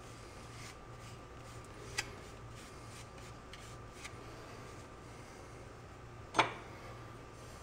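Quiet room tone with a faint steady hum, a light click about two seconds in and a sharper knock about six seconds in.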